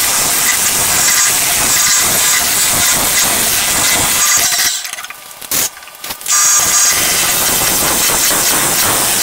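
Hollowing tool of a Carter hollowing system cutting inside a spinning wood-and-acrylic vase blank on a lathe: a steady, hissing scrape. About five seconds in the cutting drops away for under two seconds, broken by one brief loud burst, then resumes.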